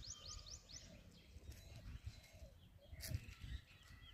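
A small bird singing a rapid series of high, rising notes, about five a second, which stops about a second in. Faint low rumble throughout, with a single sharp tap about three seconds in.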